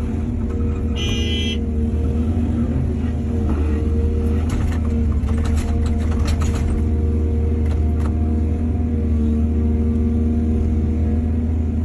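Heavy diesel earthmoving machinery running steadily with a deep drone, a brief high squeal about a second in, and a run of metallic clanks and rattles around four to seven seconds in.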